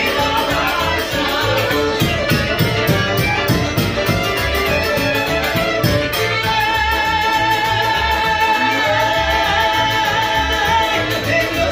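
Live Ukrainian village folk band playing a fast dance tune: fiddle, accordion and double bass over a large hand-held drum keeping a steady beat, with a woman singing and holding long notes in the second half.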